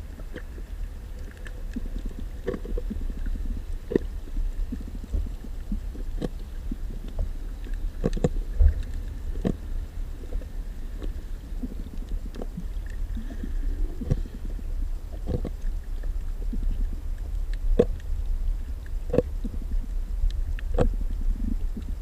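Underwater on a coral reef: a rusty parrotfish biting and scraping at coral, heard as sharp, irregular clicks and cracks every second or two over a steady low rumble of water.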